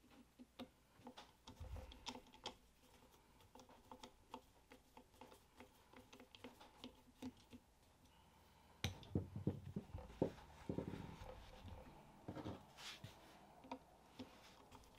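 Faint small clicks and scrapes of a flathead screwdriver bit turning out the handguard screws on a lever-action rifle, busiest in the later part.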